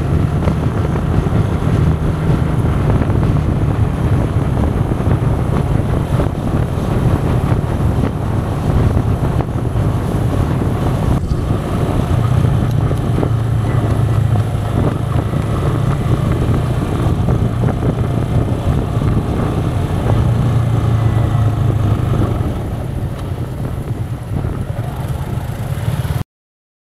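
Yamaha Fazer 250 single-cylinder engine running at cruising speed, with wind buffeting the microphone. It gets quieter a few seconds before the end, then cuts off suddenly.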